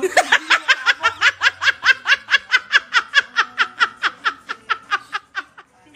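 A woman laughing hard: a long run of quick 'ha' sounds, about five a second, trailing off near the end.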